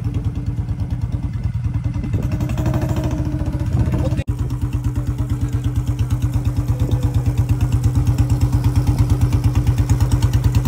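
Modified Royal Enfield Bullet's single-cylinder engine running with a steady, even thump, the sound dropping out briefly about four seconds in.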